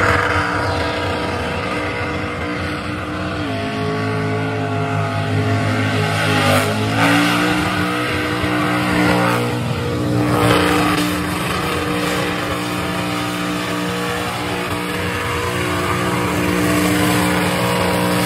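Holden Commodore burnout car's engine held at high revs while its rear tyres spin on the pad, with tyre noise over the engine. The engine note rises in pitch about seven seconds in and then holds steady.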